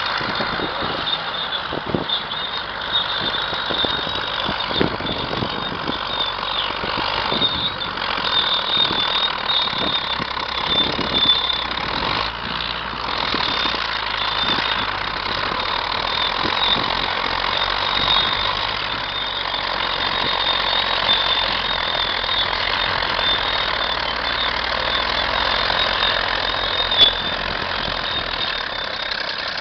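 Caterpillar D8 crawler tractor's diesel engine running steadily, with irregular low clanks throughout and one sharp knock near the end.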